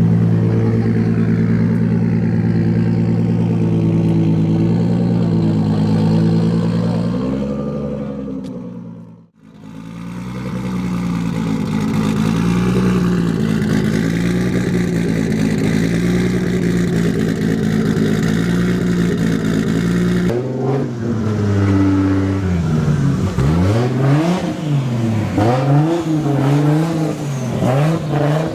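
Toyota Supra's turbocharged 2JZ straight-six engine running steadily. In the last third it is revved in quick repeated blips, its pitch rising and falling again and again.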